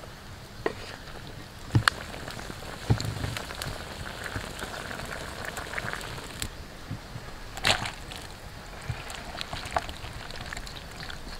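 Chicken and cauliflower sizzling and simmering in a pan over a wood fire, a steady hiss with scattered crackles and a few sharp knocks.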